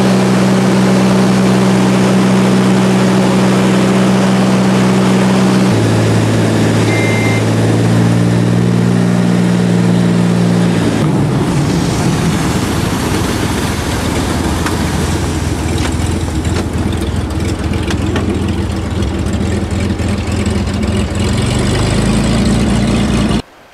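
Floatplane's piston engine and propeller heard from inside the cabin: a steady drone that drops in pitch in steps as power is pulled back for the landing approach. About eleven seconds in it turns to a rougher rushing noise as the floats meet the lake and the plane slows on the water, and the engine picks up again near the end before the sound cuts off suddenly.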